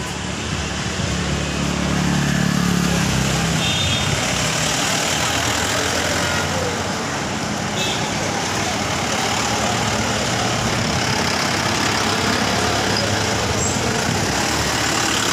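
Street traffic: vehicle engines running and passing, with a steady spread of road noise and an engine hum loudest in the first few seconds.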